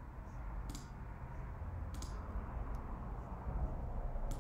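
Three separate sharp clicks of a computer mouse, over a low steady hum.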